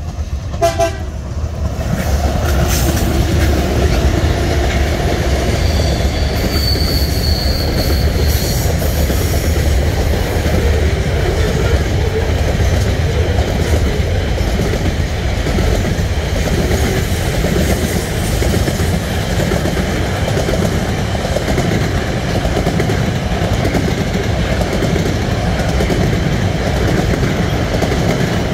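TasRail diesel freight train passing close by: the locomotives go by with a short horn note about a second in, then a long string of container and flat wagons rumbles and clatters over the rails. A high wheel squeal rings for about two seconds some six seconds in.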